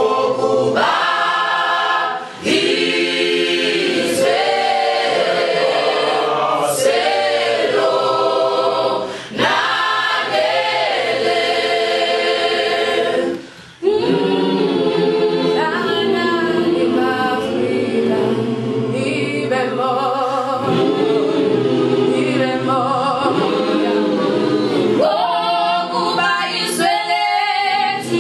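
Mixed choir of young voices singing a cappella without instruments, phrase after phrase, with short breaths between lines and a brief pause about halfway through.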